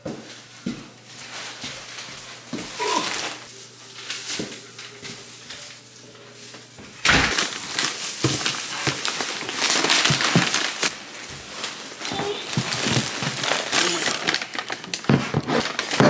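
Paper and plastic shopping bags rustling and crinkling as bottles and boxes are pulled out of them. This starts suddenly about halfway through. Before that there are only a few soft knocks and shuffles.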